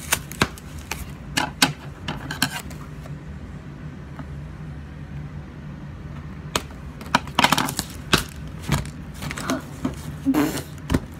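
Cardboard and plastic toy packaging being handled and pulled apart: irregular rustling and crinkling with sharp clicks and snaps, a quieter spell of a few seconds in the middle, then a busier flurry. A low steady hum runs underneath.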